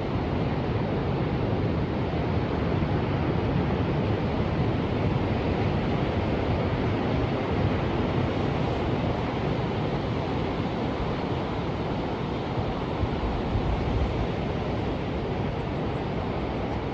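Ocean surf: a steady, continuous rush of waves with gentle swells in loudness and no separate crashes standing out.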